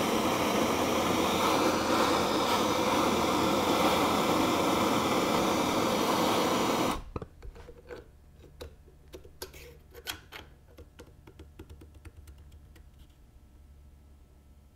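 Hand-held propane torch burning steadily while heating a Muncie mainshaft's speedometer drive gear for a shrink fit; it shuts off suddenly about seven seconds in. Light metallic clicks and taps follow as pliers work the hot gear into place on the shaft.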